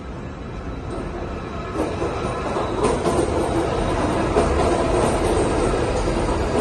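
Taipei Metro C381 electric train rolling in along the platform, its wheels and running gear growing louder over the first two seconds and then running steadily as the cars pass close by, with a sharp click just under three seconds in.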